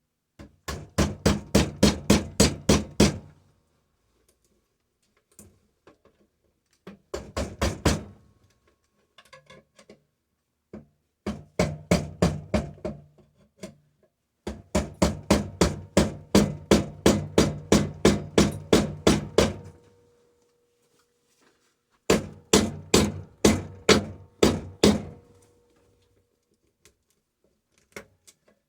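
Rapid hammer blows on the metal of a sealed compressor, about five strikes a second, in five runs of one to five seconds with short pauses between.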